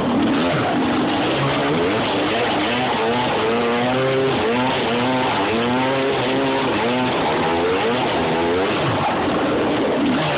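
A vehicle engine revving up and down over and over, its pitch rising and falling in waves, over a steady rush of noise, as the vehicle spins doughnuts and kicks up dust.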